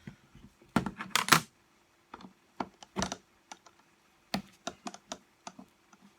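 Sharp clicks and light knocks of metal parts and hand tools being handled while a reciprocating saw's gear section is taken apart. There is a dense cluster of clicks about a second in, then scattered single clicks and taps.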